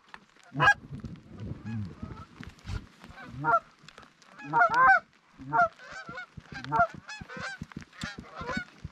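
Canada geese honking: a string of short, bent honks and clucks, repeated irregularly about once or twice a second, with the loudest honks near the middle.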